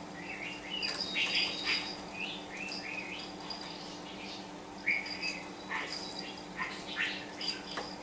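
Pet budgerigar talking: a scattered run of short chirps, quick warbles and clicks.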